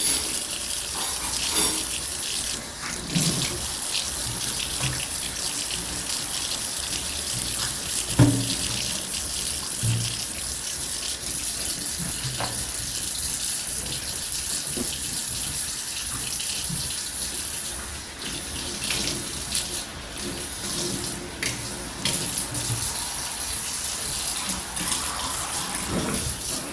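Tap water running steadily into a kitchen sink during dishwashing, with scattered clinks and knocks of dishes. One knock about a third of the way through is louder than the rest.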